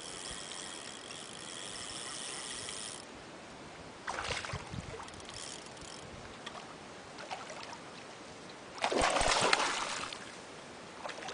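Hooked golden dorado splashing and thrashing at the surface beside the boat: a short splash about four seconds in and a louder, longer one about nine seconds in. A steady high buzz runs for the first three seconds and cuts off suddenly.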